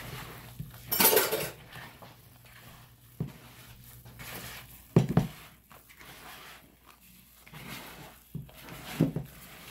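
A hand in a disposable plastic glove kneading oatmeal cookie dough in a plastic mixing bowl: plastic crinkling and rustling, loudest about a second in, with a few sharp knocks of the bowl as the dough is worked.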